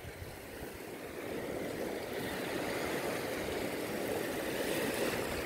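Small waves washing over a rocky shore, with wind on the microphone: a steady wash that grows a little louder.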